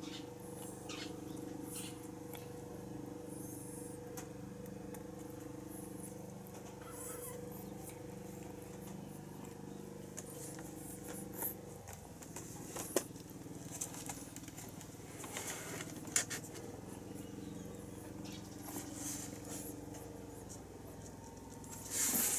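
A mother cat moving around her newborn kittens on a towel in a cardboard box: faint rustles and small clicks over a steady low hum, with a louder scraping rustle near the end as she settles down.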